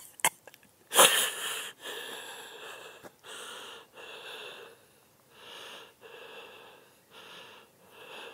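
A person breathing heavily, a run of audible breaths about once a second, with one loud sudden sound about a second in.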